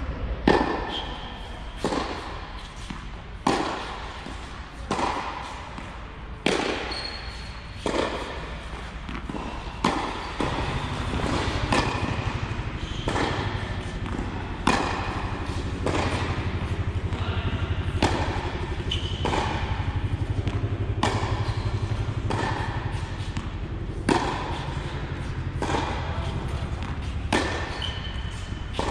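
Tennis balls struck by rackets and bouncing on a hard court, a sharp hit about every second and a half, each echoing in a large indoor hall. A steady low hum comes in about a third of the way through and stays.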